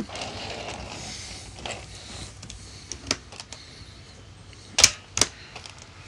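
Hard plastic clicks and knocks from a Fantom İkoncan bagless vacuum's clear dust container and its latch being handled, the machine switched off. A few scattered clicks, with two louder ones near the end.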